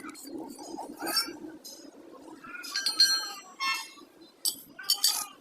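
Light metal clinks and taps with short ringing tones, the loudest about three seconds in, from hand tools and clutch-plate parts being handled, over a low steady hum.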